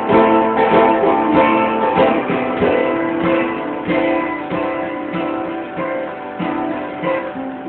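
Live music led by strummed guitar chords, heard through a cellphone's microphone with the top end cut off. The playing grows quieter over the last few seconds.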